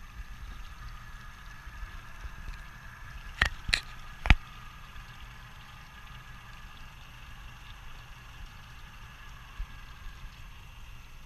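Twin Yamaha 150 outboard motors idling: a steady low rumble with a faint steady whine above it. Three sharp knocks come close together about three and a half seconds in.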